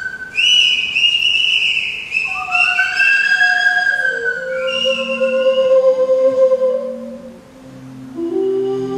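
A small flute held in cupped hands, played in sliding, whistle-like notes that bend up and down in pitch. From about four seconds in, lower held tones sound beneath it.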